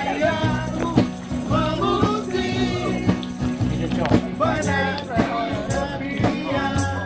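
Background music: a song with a singing voice over a steady beat and bass line.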